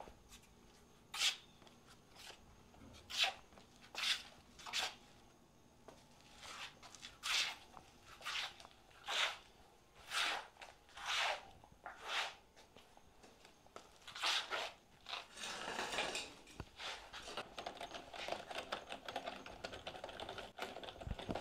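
A series of short, dry rustling strokes, about one a second at an uneven pace, that turns into a denser, continuous rustle about fifteen seconds in.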